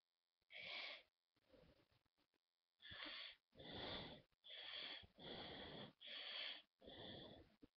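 Faint scratching of a pen on paper in short, even strokes, about one every second, as the pen traces over drawn lines.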